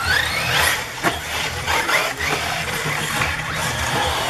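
Electric RC buggy motors whining as the cars speed past on a dirt track, with a rising whine at the start and a few sharp clacks. A steady low hum runs underneath.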